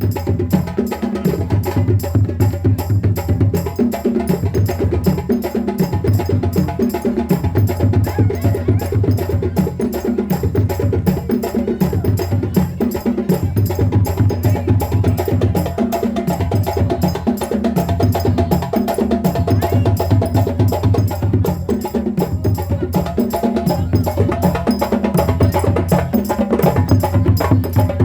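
Live West African hand drumming: djembe and drums play a fast, dense rhythm over a low drum part that repeats the same pattern throughout.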